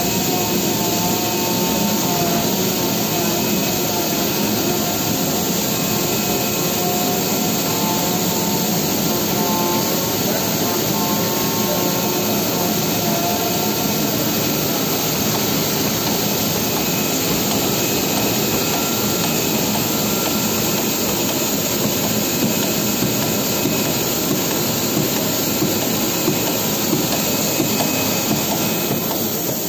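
CNC oscillating-knife leather cutting machine running as it cuts shoe-upper pieces: a steady, dense mechanical noise. Faint whining tones shift in pitch as the cutting head moves.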